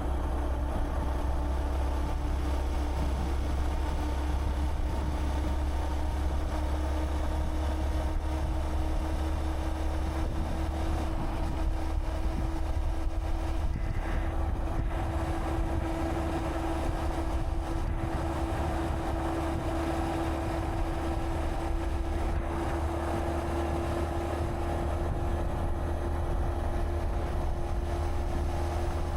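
Honda Monkey 125's air-cooled single-cylinder four-stroke engine running at a steady cruise, its note climbing a little about halfway through. Wind rumbles on the camera microphone underneath and eases somewhat about eleven seconds in.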